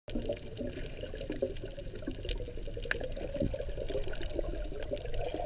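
Muffled water sound recorded by a camera held under water: bubbling and sloshing, with scattered small clicks. It cuts in suddenly at the start.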